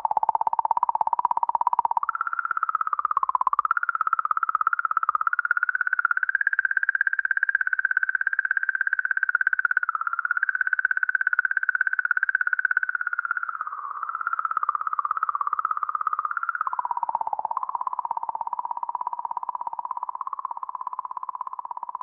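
Planetary 'sound' from a space-probe recording turned into audio: one continuous, buzzy electronic drone near 1 kHz. Its pitch wavers, climbs about two seconds in, holds higher through the middle, then drops back about two-thirds of the way through.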